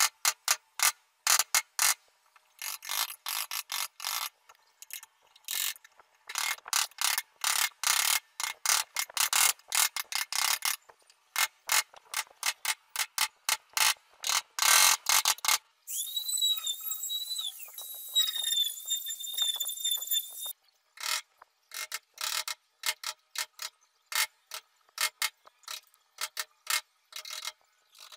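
A steel hand chisel paring pine, in quick short cuts that come singly and in dense rapid runs. About sixteen seconds in, a high thin whine lasts for about four seconds.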